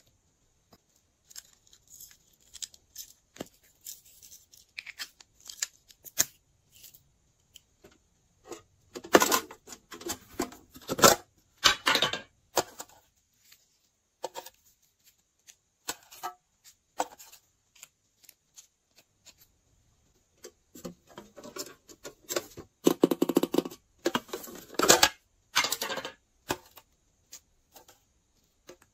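Hands adding pink foam flower cutouts, sequins and glitter onto glossy slime in a glass tray. The sound is scattered light taps and clicks, with two stretches of crackly rustling a few seconds long, one about a third of the way in and one near three-quarters.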